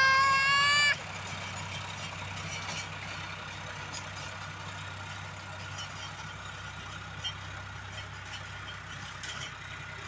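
A loud, steady horn-like tone with a slight upward slide, which cuts off about a second in. Under it and after it a motor hums steadily at idle, with a few faint ticks scattered through.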